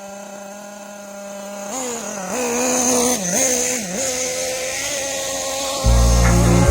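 Kyosho Inferno Neo ST 3.0 nitro RC truck's small two-stroke glow engine idling, then held at a higher speed from about two seconds in, sagging briefly three times, while its carburettor needles are being tuned. Music with heavy bass comes in near the end.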